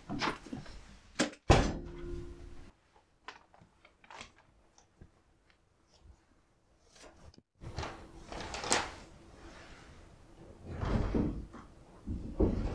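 A heavy entrance door thuds shut about a second and a half in and rings briefly. Faint scattered clicks and soft rustles follow, with a few louder swells near the end.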